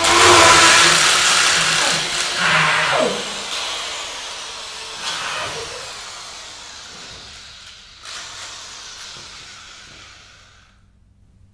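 A power tool sound effect running loud with a noisy whir that falls in pitch about three seconds in, then a hiss that fades away slowly over the following seconds.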